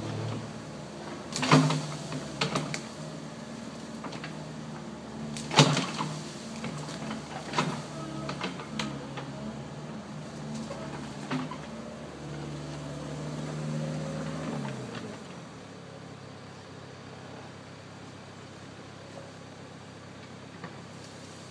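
A JCB digger's diesel engine runs steadily while its bucket tears into an apple tree, with several loud, sharp cracks of branches breaking. The engine note drops away about two-thirds of the way through.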